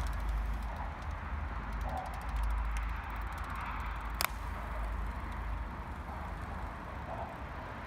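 Road bicycles rolling past with the fast ticking of their freewheels as the riders coast, over a steady low rumble. There is a single sharp click about four seconds in.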